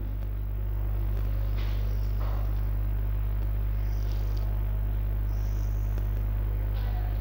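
Steady low electrical hum, with faint scratching of chalk on a blackboard as a line is drawn.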